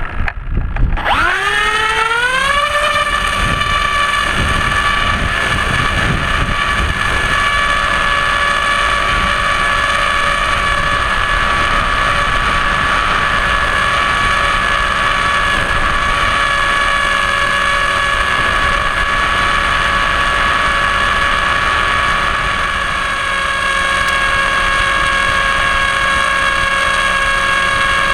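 Electric motor and propeller of a Blitz-RC Skysurfer model plane, heard from its onboard camera: it spins up with a rising whine about a second in at launch, then runs at a steady high pitch through the climb.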